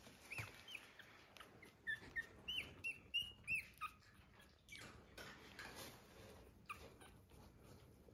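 Eight-day-old puppies squeaking and whimpering in short high-pitched cries, about ten of them in the first four seconds. Then come softer rustling sounds with a couple more squeaks.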